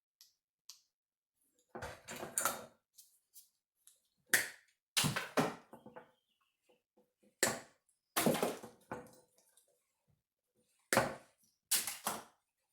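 Automotive wiring harness being handled: bundled wires and plastic connectors rustling and clattering in irregular bursts, with sharp clicks and knocks.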